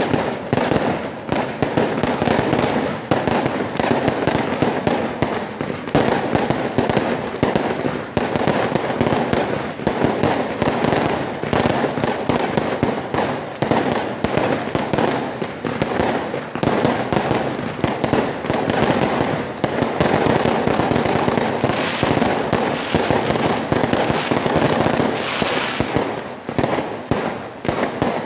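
Fireworks display: a continuous, rapid barrage of aerial shell bursts and bangs mixed with crackling, without a break.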